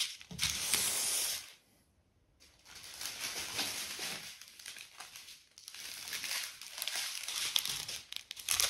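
Small clear plastic bags of diamond-painting drills crinkling as they are handled, in stretches, with a short pause about one and a half seconds in.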